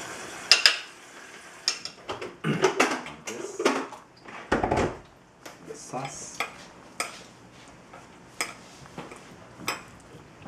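Metal chopsticks clinking and scraping against ceramic dishes: a run of sharp, uneven clinks, with one heavier knock of a dish on the table about four and a half seconds in.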